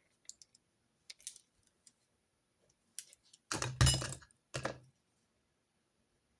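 Stationery being handled on a desk during note-taking: a few faint clicks and taps, then two louder clattering knocks about three and a half seconds in, like objects set down or shifted on the desk.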